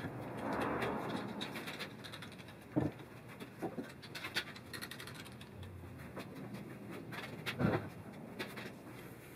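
Yellow one-handed trigger bar clamps being fitted and squeezed onto two pine boards: rapid clicks from the clamps' trigger ratchets, some scraping, and knocks of clamps against the wood and the saw table, with two louder knocks about three seconds and about eight seconds in.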